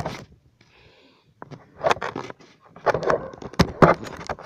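Irregular close knocks and scrapes from a puppy moving about on concrete right at the microphone. They begin after about a second of near quiet.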